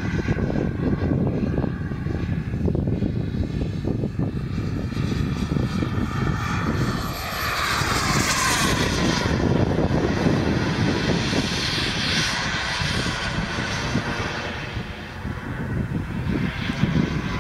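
JetCat Titan model turbine in a radio-controlled Raptor jet, whining in flight. The whine swells with a falling pitch as the jet passes, about seven to nine seconds in, and swells again a few seconds later.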